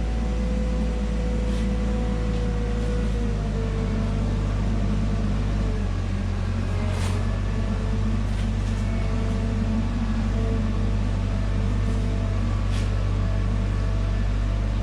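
Heavy truck engine running steadily, with a few faint clicks and knocks over it.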